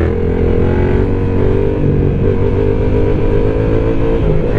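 Yamaha MT-07's 689 cc parallel-twin engine with an aftermarket Arrow exhaust, heard on the move under fairly steady throttle; its note changes right at the end.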